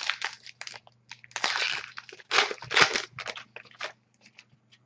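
Trading cards being handled and slid off a pack, giving crinkling rustles and small clicks. The two longest rustles come in the middle.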